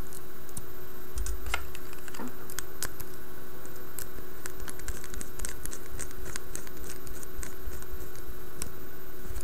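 A small screwdriver clicking and scraping against the fill-plug screw as it is screwed back into the stainless-steel base of a Kayfun rebuildable tank atomizer: irregular small metal clicks.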